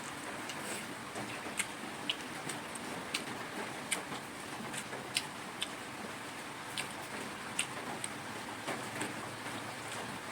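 Steady rain falling, an even hiss, with scattered sharp ticks at irregular intervals of roughly two or three a second.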